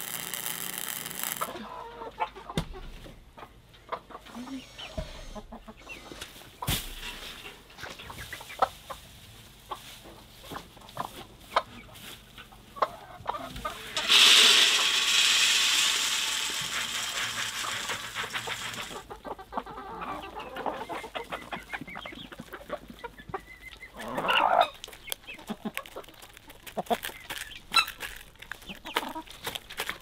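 A MIG welder crackles for about the first second and a half. Then hens cluck and call, and about 14 seconds in a bucket of feed is poured into a galvanized metal feeder: a loud rushing hiss of grain that lasts about five seconds and fades away.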